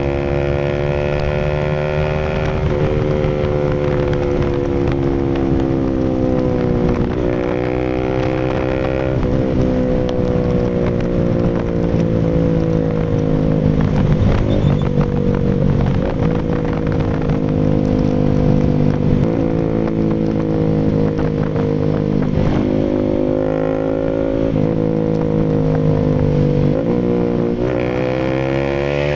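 Bajaj Rouser RS200's single-cylinder engine running through an SC Project full aftermarket exhaust. The engine speed falls a couple of seconds in, rises briefly, holds a steady note for most of the time, then climbs again near the end.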